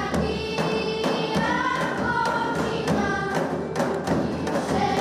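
Children singing a Pontic Greek folk song to a steady beat on a daouli, a large double-headed drum struck with a stick.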